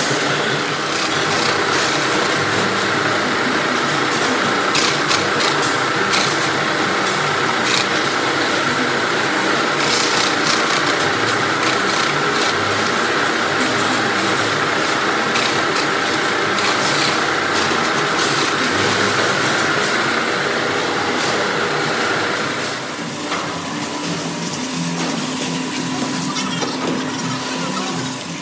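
Steady noise of a seafood processing line running: conveyors and rollers with a steady whine and scattered clatter and knocks. The whine stops about 22 seconds in and the noise drops to a quieter machine hum.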